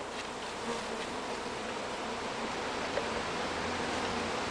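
Steady drone of a large mass of honeybees flying around a hive, a package colony just released into it.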